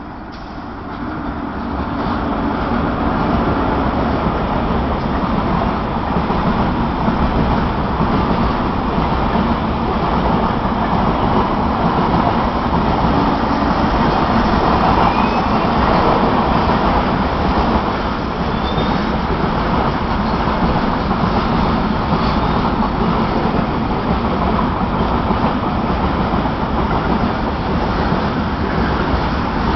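A train running, a steady loud rumbling noise that builds up over the first two seconds and then holds steady.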